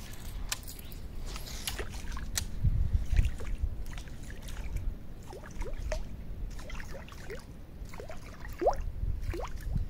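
A popper lure jerked across the water's surface in short pulls, popping and splashing, with brief pauses between the pulls.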